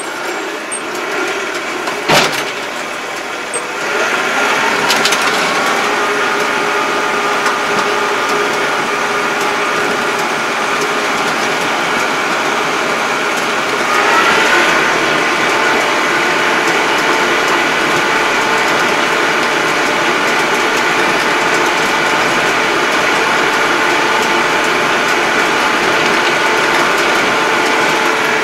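Yanmar YT333 tractor's diesel engine running as the tractor drives, heard from inside the cab. The engine note steps up a few seconds in and rises again about halfway through, and there is one sharp click about two seconds in.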